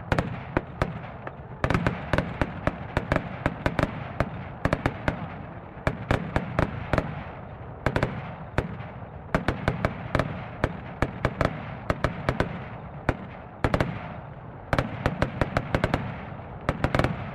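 Fireworks launched from the ground, going off in a dense, irregular barrage of sharp bangs, several a second, over a continuous crackling hiss.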